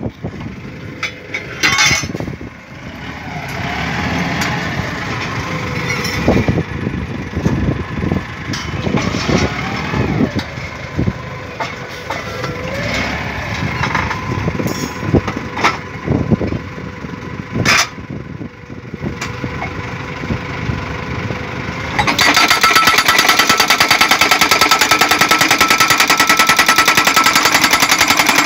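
DDIPL DD950B pile driver running with a steady whine and scattered irregular clanks as a steel guardrail post is set under its hammer. About 22 seconds in, the hydraulic hammer starts a loud, rapid, even pounding, driving the steel post into the ground.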